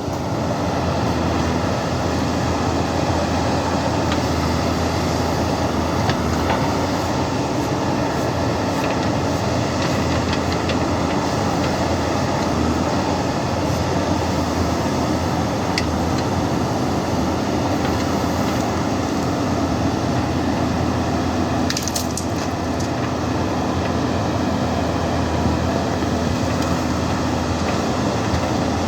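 JCB backhoe loader's diesel engine running steadily under load while digging, with scraping and crunching of soil.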